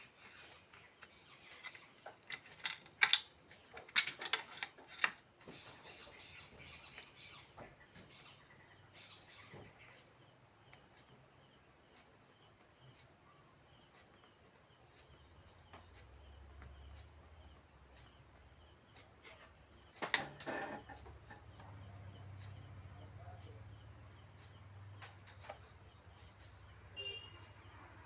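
Faint, steady insect chirping, like crickets, with sharp clicks and taps: a cluster about 3 to 5 seconds in and another about 20 seconds in.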